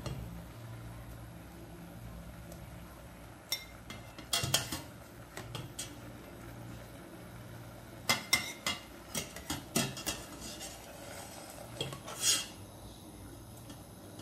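A metal ladle clinking and knocking against the inside of a stainless steel pot as blanched broccoli is scooped out of the water, in scattered clusters of sharp clinks over a steady low hum.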